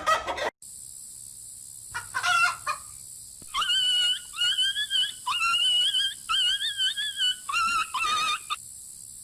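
A run of about ten short, high-pitched animal calls with a wavering pitch, starting about two seconds in, over a steady high hiss.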